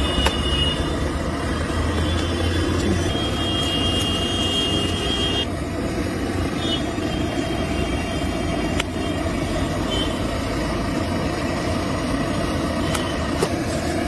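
Steady street traffic noise, a low rumble of vehicles, with a thin high whine over it for the first five seconds or so that cuts off suddenly.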